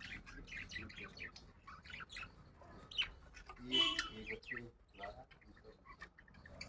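Budgerigars and their chicks chirping during feeding: a run of quick, short, high cheeps, with one louder, harsher call about four seconds in.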